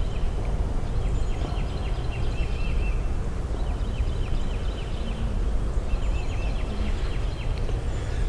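Honeybees buzzing around an open hive, over a steady low rumble, while a small bird chirps in short repeated runs.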